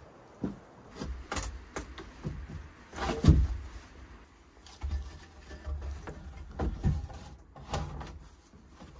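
Irregular knocks and thuds of hands-on work, about a dozen over nine seconds, the heaviest about three seconds in.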